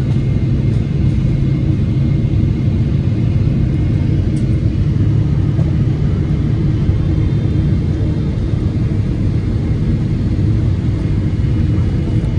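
Airliner cabin noise on approach heard from a window seat beside the engine: the steady low rumble of the jet engines and rushing air, unchanging throughout.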